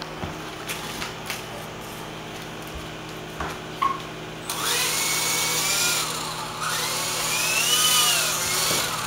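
Remote control helicopter's small electric motor and rotor running with a steady hum. About halfway through it turns louder, with a rushing whir and a motor whine that rises and falls in pitch as the throttle is worked.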